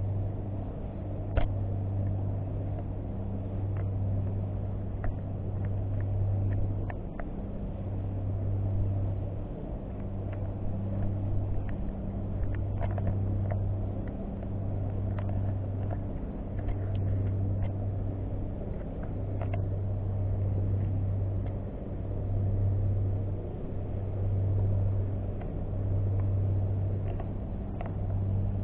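A low droning hum that swells and drops away every second or two, with a few faint clicks scattered through it.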